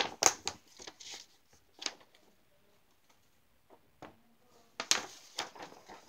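A sheet of printer paper, an order invoice, being unfolded and handled: a few crisp paper rustles and crackles in the first two seconds, a quiet pause, then more rustling near the end.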